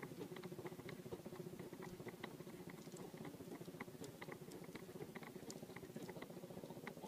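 Fishing line being handled and wound on a plastic handline spool, giving small irregular clicks and ticks, over a steady, rapid low pulsing in the background.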